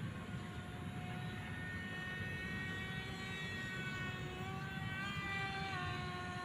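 Remote-control model airplane's motor and propeller whining steadily, the pitch climbing about two thirds of the way in and dropping back shortly after as the throttle changes.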